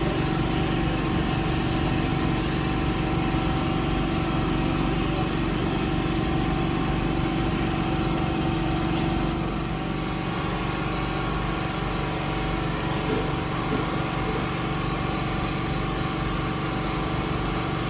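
Steady mechanical hum of a small engine or motor running continuously at an even speed, with a slight drop in level about ten seconds in.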